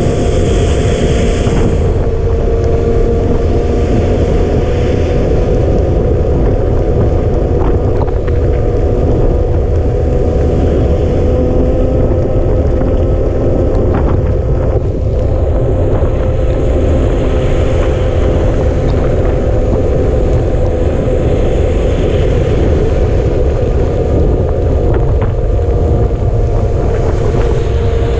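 Wind buffeting the microphone of a bicycle-mounted action camera riding on a wet road in the rain. Under it runs a steady whine that wavers slightly in pitch, and there are a few brief knocks.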